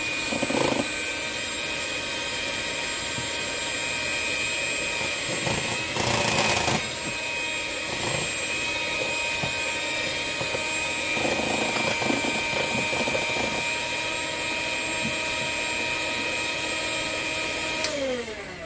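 Small electric hand mixer running steadily at one speed, its beaters whipping an egg into creamed butter in a stainless steel bowl. Its whine falls in pitch and stops as it is switched off near the end.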